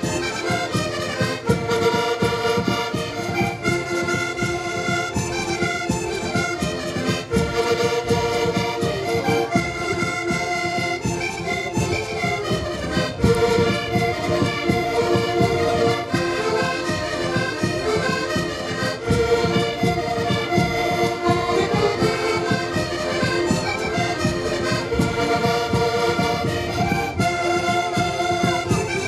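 Ensemble of Portuguese concertinas (diatonic button accordions) playing a traditional tune together in many held chords. A bass drum and reco-reco scraper keep a steady beat underneath.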